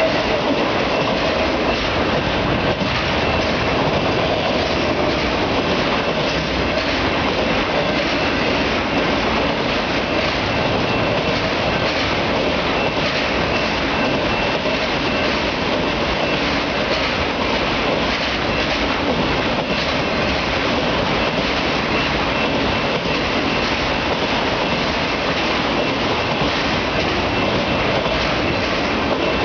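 Autorack freight cars rolling past, a steady loud rumble and rattle of steel wheels on the rail, with a faint thin high squeal from the wheels now and then.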